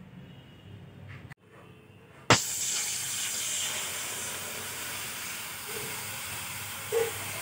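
Water poured in a steady stream into an aluminium wok, starting abruptly a little over two seconds in with a splash on the bare metal, with a small knock near the end.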